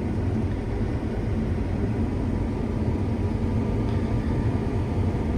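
Combine harvester running while cutting wheat, heard from inside the cab: a steady low rumble with a faint constant hum.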